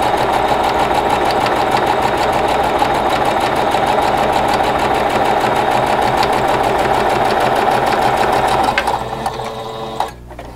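Singer electric sewing machine stitching a straight seam at a steady speed, an even rapid needle rhythm over the motor's hum. It stops about nine seconds in, followed by a few light clicks near the end.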